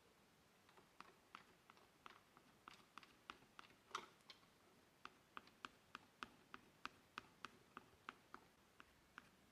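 A faint series of light, sharp taps, irregular at first and then settling into a steady beat of about three a second.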